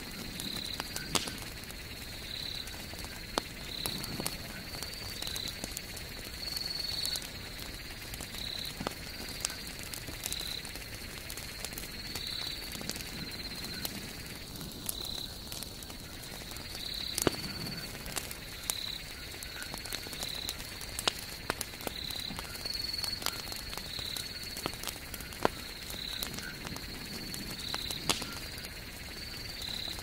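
Wood campfire crackling, with sharp pops and snaps from the burning logs at irregular moments. Behind it runs a steady high-pitched chirring call that pulses about once a second.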